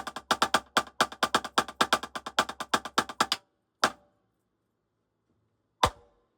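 Drum struck with sticks in a rapid, even run of strokes with louder accented notes, stopping about three seconds in, followed by two single strokes about two seconds apart. The drum has a high, ringing pitch, which the drummer finds tuned too high.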